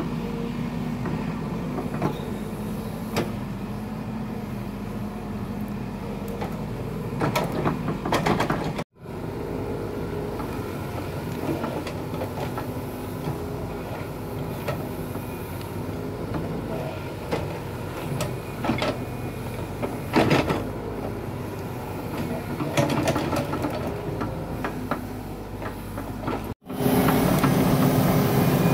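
Hitachi ZAXIS compact excavator running steadily as it digs, its engine hum broken by a few short knocks and clanks from the arm and bucket. The sound drops out briefly twice and is louder and closer for the last two seconds.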